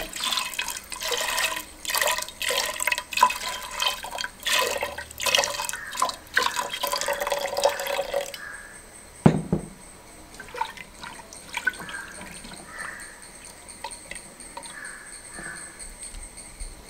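Water poured from a glass jug into a pressure cooker, splashing and gurgling for about eight seconds, then stopping suddenly. A single knock follows, then faint small sounds of a hand mixing the contents of the pot.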